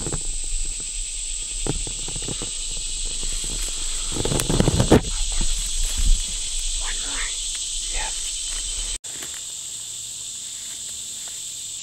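Steady high-pitched drone of summer insects in the woods, with brief rustling and handling noises near the middle. The sound cuts off abruptly about nine seconds in, and a slightly quieter insect drone carries on.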